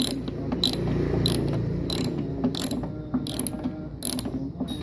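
Ratchet wrench with a 12 mm socket clicking in short runs every second or so as it is swung back and forth, backing out a car roof-rail mounting bolt. A low steady hum runs underneath.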